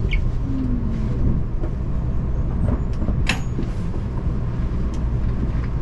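Low steady rumble inside a Shinkansen car as the train brakes for an emergency stop, with a short falling whine about half a second in and a sharp click a little past three seconds.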